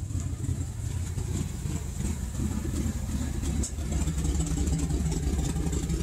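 Ford 5.4L Triton V8 idling rough with an uneven, shaking exhaust note that almost sounds like a misfire. The rough idle comes from a vacuum leak at cracked vacuum elbows and hose.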